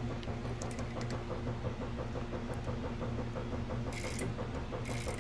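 Two short scraping hisses near the end as a hand works the cage of a Microshift Advent X 10-speed clutch rear derailleur. Under them runs a steady low hum with fast, even ticking.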